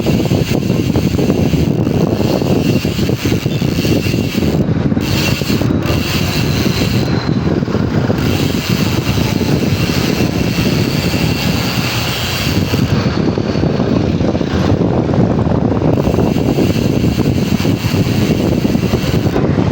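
A bicycle's Paps Pro 3 rear hub buzzing as its freehub ratchets while coasting. The faint high buzz lies under a louder steady rush of wind and road noise.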